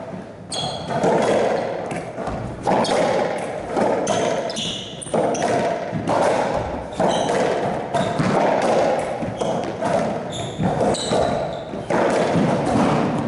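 Racquetball rally: the hollow rubber ball cracks off racquet strings and the court walls in sharp hits about once a second, each ringing on in the boomy echo of the enclosed court, with short high squeaks from the players' shoes on the floor.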